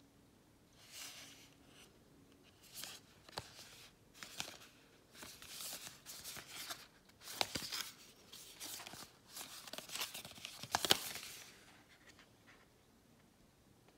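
Cardboard packaging of a small filter kit being handled and turned over in the hands: a run of rustling and scraping noises with a few sharp clicks, dying away near the end.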